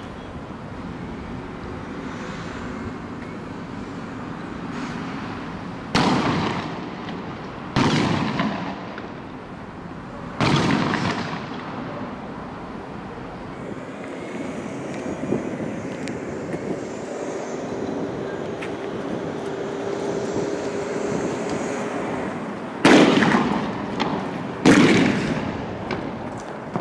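Five loud bangs, each with an echo that dies away over a second or two. The first two come about six and eight seconds in, the third around ten seconds, and the last two near the end.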